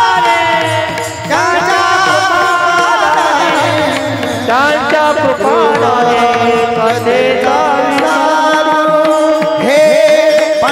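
Marathi devotional kirtan music: a sustained, gliding, ornamented melody over a steady hand-drum rhythm, between sung verses.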